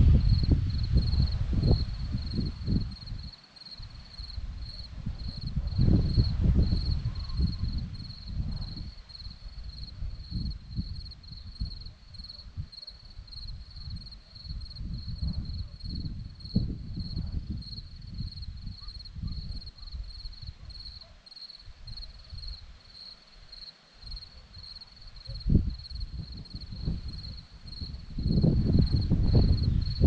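Crickets chirping in a steady, evenly pulsing high trill. Gusts of wind rumble over the microphone, loudest at the start, around six seconds in and near the end.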